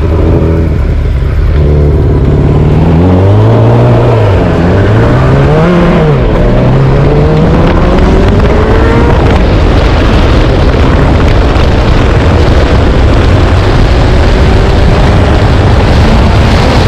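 Kawasaki Ninja 900 inline-four motorcycle engine powering a go-kart, accelerating hard through the gears: its pitch climbs, drops back at gear changes about four and six seconds in, then rises slowly in a higher gear. Wind and road noise grow as the speed builds.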